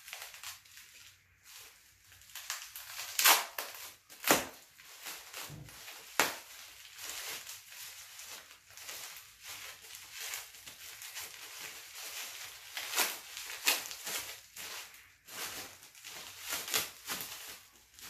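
Plastic packing wrap crinkling and crackling as it is pulled off a metal belt buckle, with several sharp, louder cracks along the way.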